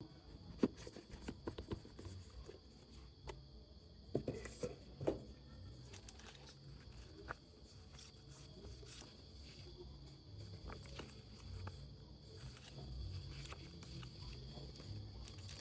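Quiet handling of a cardboard camera box and its paper inserts: scattered taps and clicks in the first five seconds as the box is opened, then soft shuffling of the printed manual and card. A faint steady high whine runs underneath.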